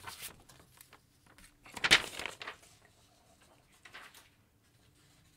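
A few short knocks and clicks of handling at a computer desk, the loudest about two seconds in and a softer one near four seconds, then quiet room tone with a faint steady hum.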